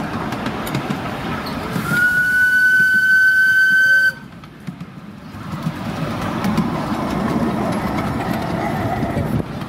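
Ride-on miniature steam locomotive running along its track, then its whistle blows one long steady note with a hiss of steam for about two seconds, starting about two seconds in and cutting off abruptly. Afterwards the running noise of the train on the rails builds up again.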